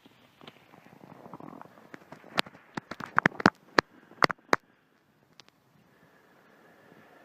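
Scottish Highland cow grazing in snow, pawing and tearing up forage grass. Soft rustling, then a quick irregular run of sharp crunches and snaps from about two and a half to four and a half seconds in.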